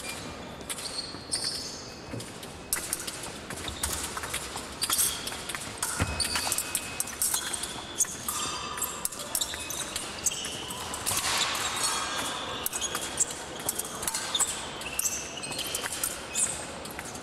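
An épée bout in progress: fencers' footwork thudding and stamping on the piste, with short shoe squeaks and repeated sharp clicks of blades meeting.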